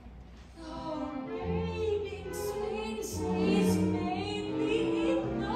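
A live pit orchestra playing a show tune with sustained strings and bass, starting quietly and swelling, with a woman's singing voice over it.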